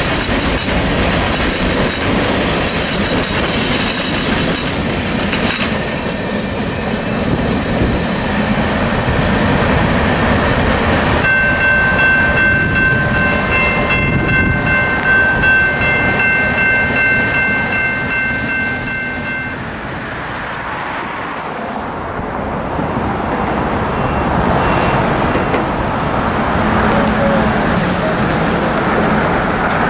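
Freight train cars rolling past on jointed track with clickety-clack and wheel rumble, and a thin high squeal in the first six seconds. From about 11 s a diesel locomotive's multi-tone air horn sounds a steady chord for about eight seconds, briefly broken partway through. Near the end the rumble of an approaching freight locomotive builds.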